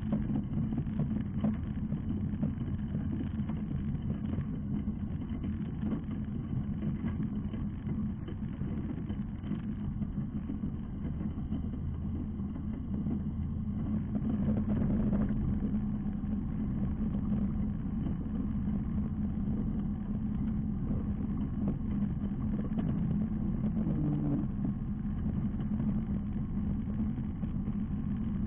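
Ultralight aircraft's engine running steadily at low power on the ground, a constant drone.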